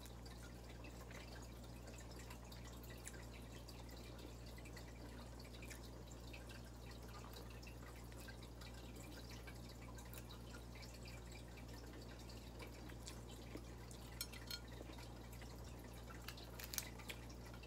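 Faint mouth-eating sounds, smacking and chewing clicks, as someone eats fried tilapia with the fingers, over a steady low hum. A few sharper clicks come near the end.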